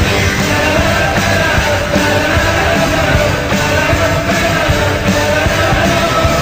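Upbeat rock song with a band and singing, playing continuously as a hockey team's goal song.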